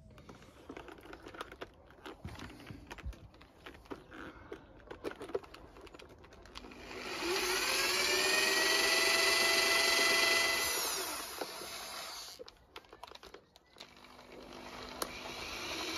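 Bosch cordless drill drilling out the rivet that holds the gas strut to the console lid's hinge rail. Small handling clicks for the first few seconds, then the drill spins up with a rising whine, runs for about four seconds, and winds down. It starts up again near the end.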